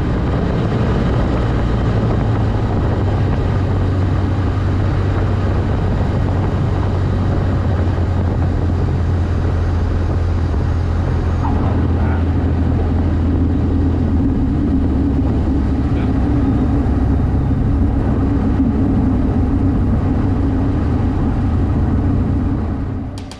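Cessna 152's four-cylinder Lycoming engine and propeller running steadily as a loud drone; about halfway through, the engine's low tone shifts.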